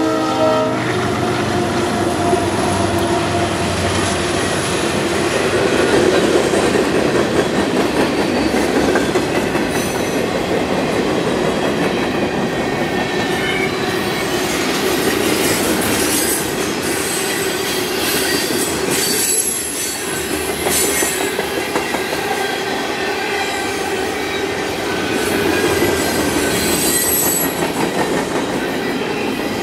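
Freight train rolling past: a steady rumble of steel wheels on rail with clickety-clack over the joints and high, thin wheel squeals coming and going.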